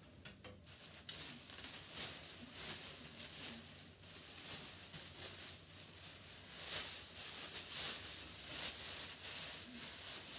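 Fabric rustling and swishing as clothes are picked up, shaken out and folded, coming and going unevenly.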